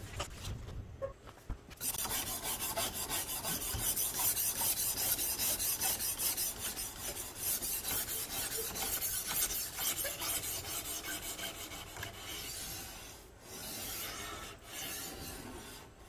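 Sharpening stone on a guided rod sharpener scraping back and forth along a 440C stainless steel knife edge in quick, even strokes, several a second. It starts about two seconds in and pauses briefly a couple of times near the end.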